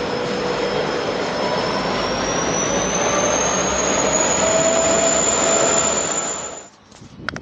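Train running past close by: a loud, steady rush and rumble with a thin whine that rises in pitch about two seconds in, cutting off abruptly near the end.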